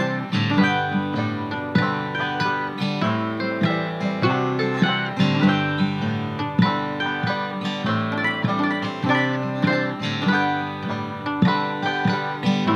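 Instrumental music with no singing: plucked acoustic strings playing a steady run of notes.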